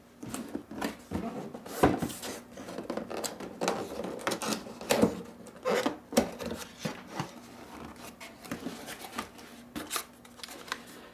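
Cardboard box being opened by hand: flaps and tabs pulled and folded back, with cardboard scraping, rustling and knocking in a string of irregular clicks, the loudest about two seconds in.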